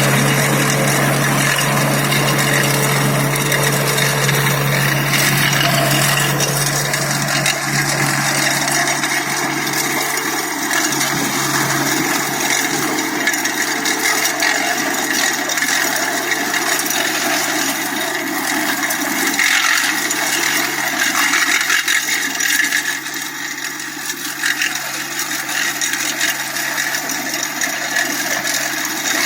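Atom mini tractor running with its stubble shaver cutting sugarcane stubble: a steady, loud grinding and rattling of blades through cane stubble and soil over the engine's hum, which fades into the cutting noise after several seconds.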